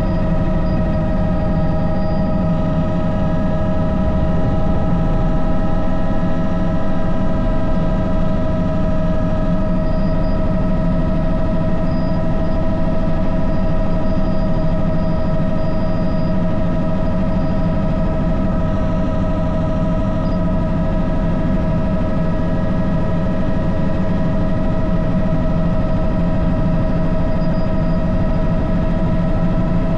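Helicopter in flight: a steady high turbine whine over a low rumble from the rotor and engine.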